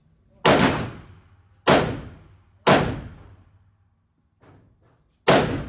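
A 10mm semi-automatic pistol fired four times, about a second apart with a longer pause before the last shot. Each shot is a sharp crack that rings out in the indoor range. A few much fainter pops come between the third and fourth shots.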